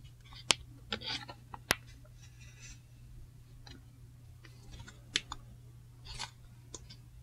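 Trading cards and plastic card sleeves handled, with faint rustling and scraping as a card is slid into a sleeve. A few sharp clicks stand out, about half a second in, again a second later and near five seconds, over a steady low hum.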